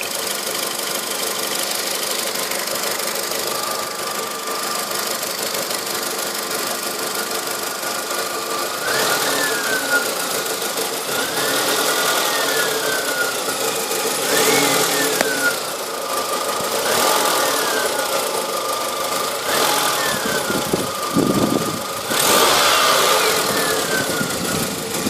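An engine running with a strange noise that its owner cannot identify: a steady whine over the engine sound. From about a third of the way in, the whine repeatedly rises sharply in pitch and falls back, roughly every two and a half seconds.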